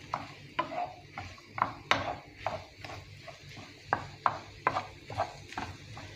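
Wooden spatula stirring diced potatoes and egg in a nonstick frying pan, knocking and scraping against the pan in irregular strokes about two to three times a second.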